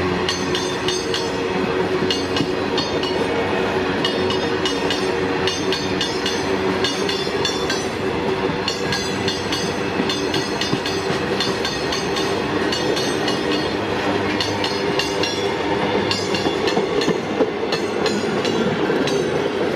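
Freight train wagons rolling past at speed, their steel wheels clattering over the rail joints in a continuous clickety-clack over a steady metallic drone.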